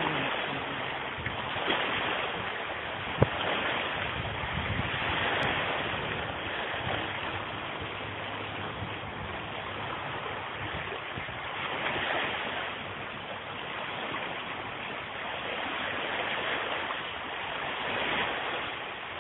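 Sea surf washing on the shore in slow swells, with some wind on the microphone; a single sharp click about three seconds in.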